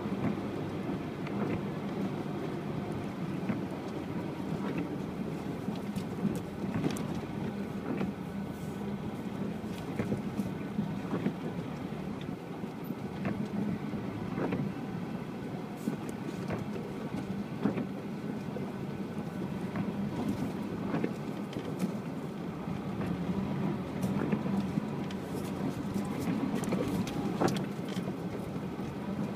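UAZ Patriot SUV driving off-road: its engine runs steadily, with frequent short knocks and rattles scattered irregularly over the engine sound.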